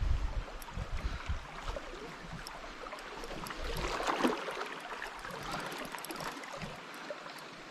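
River current rushing over a shallow run: a steady hiss of flowing water. There is low rumbling in the first couple of seconds, and the water sound swells briefly about four seconds in.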